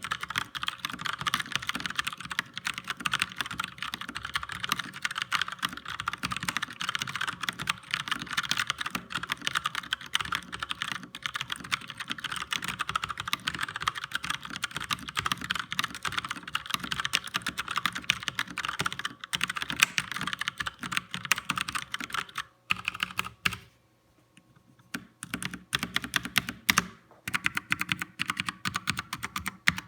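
Fast typing on a DareU 87-key mechanical keyboard with Cherry MX White switches and stock ABS keycaps: a dense, continuous stream of key clicks. The stream breaks off about 23 seconds in, and a few scattered runs of keystrokes follow near the end.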